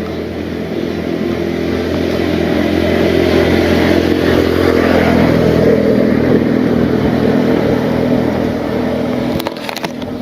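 A motor engine running steadily, growing louder to about six seconds in and then fading somewhat, with a few sharp clicks near the end.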